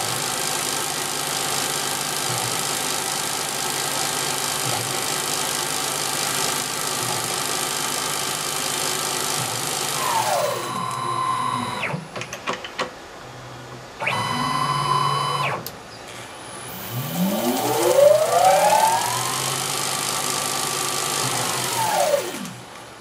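Small CNC lathe running through its program: the spindle motor runs steadily, then winds down with a falling whine about ten seconds in. After a short pause with a few clicks, a brief steady motor whine is heard, and the spindle spins up again with a rising whine, holds speed, and winds down near the end. The stop and restart are the spindle stopping and starting around a tool change.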